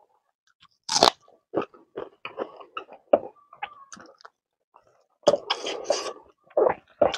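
Close-up eating sounds of a meal of smoked pork, kidney beans and rice: a loud crunchy bite about a second in, then irregular wet chewing, denser from about five seconds in.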